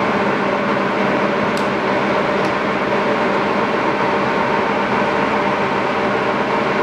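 LeBlond Regal heavy-duty engine lathe running under power with no cut, its spindle and 20-inch four-jaw chuck turning at about 544 RPM: a steady, smooth machine hum from the headstock gearing and 15 HP drive motor, made up of several steady tones.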